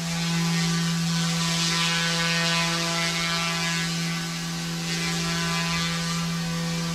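Small radio-controlled helicopter hovering, its rotor and motor giving a steady buzzing hum over a whirring hiss, the level swelling slightly as it holds position.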